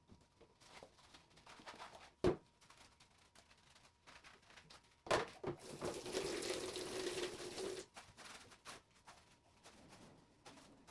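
Plastic parts of an electric fan being handled during cleaning: small clicks, a sharp knock about two seconds in and another about five seconds in, followed by a couple of seconds of running tap water.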